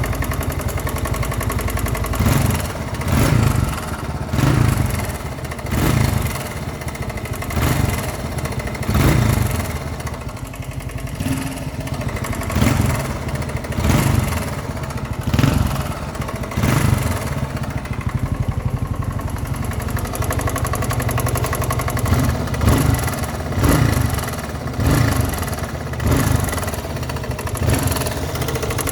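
1981 Yamaha XT250's single-cylinder four-stroke engine running with the throttle blipped over and over, the revs rising and falling about every second and a half. It makes a knocking noise whose cause the owner does not know.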